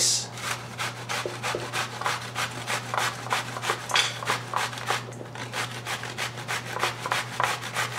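Zucchini being grated on a stainless steel box grater, in quick, regular scraping strokes.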